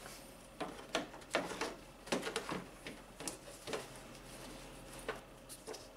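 Hard plastic engine-bay duct being handled and pressed into place over its rubber grommet and plastic clips: a scatter of light plastic clicks and knocks, busiest in the first two and a half seconds.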